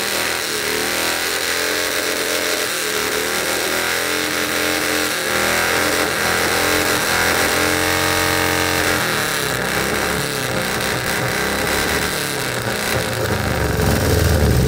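A car engine with a loud exhaust being revved over and over, its pitch climbing and falling, with one long rev in the middle.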